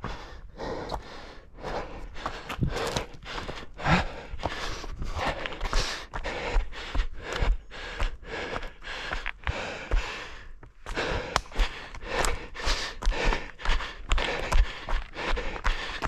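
Running footsteps on forest ground, an even stride of about two to three footfalls a second, with the runner's hard breathing close by and a short lull about two-thirds of the way through.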